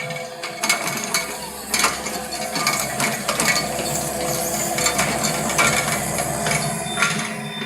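Mechanical clanking and clicking, irregular knocks over a low steady hum.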